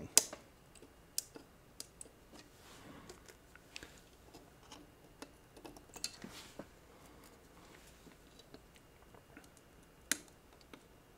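Diagonal cutters snipping resistor leads off a soldered circuit board: a string of sharp, irregularly spaced clicks, the loudest just after the start and about ten seconds in, with faint handling rustle between them.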